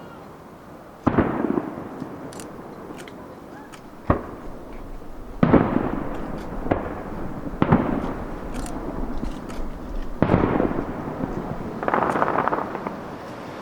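Aerial firework shells bursting: about seven sharp booms at uneven intervals, each trailing off in a rolling echo.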